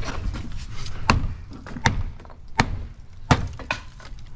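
Four hard, evenly spaced blows of a hand demolition tool chopping into wooden porch framing, about three-quarters of a second apart.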